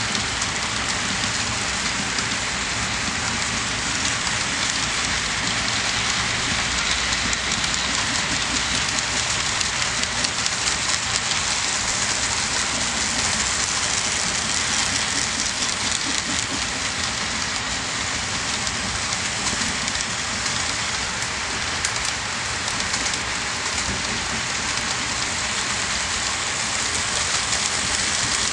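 Fifty-car HO scale model train, pulled by two Canadian National GP-9 model locomotives, rolling along the track: many small metal wheels on the rails make a steady, dense rattle with fine clicks running through it.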